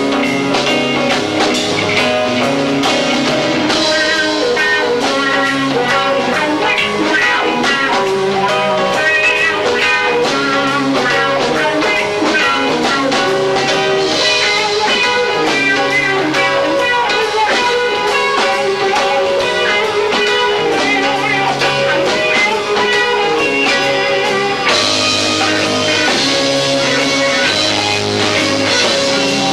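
A live rock band with two drummers plays an instrumental passage, electric guitar lines over bass and drums, recorded lo-fi through a 1990s camcorder's built-in microphone. The sound gets brighter in the treble about five seconds before the end.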